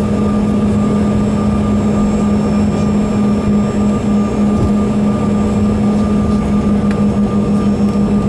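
Bombardier CRJ-200's GE CF34 turbofans at full takeoff power for a static takeoff, heard from inside the cabin: a loud steady drone with a strong low hum, a fainter higher whine and a rough rumble underneath.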